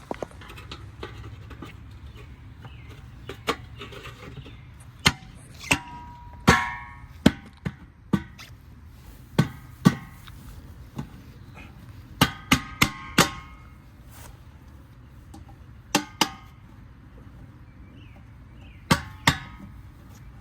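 Steel hubcaps being knocked onto a truck's wheels: a series of sharp metallic strikes in groups of two to four with pauses between, several leaving a short ringing tone.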